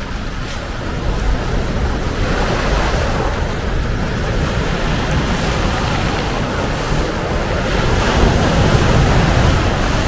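Mediterranean sea waves breaking in foam over a pebble shore and against boulders, a continuous surf wash that grows louder toward a bigger wave crashing near the end.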